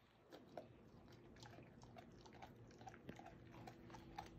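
A Goldendoodle chewing on a raw chicken leg quarter: faint, irregular crunches and clicks of teeth on meat and bone, several a second.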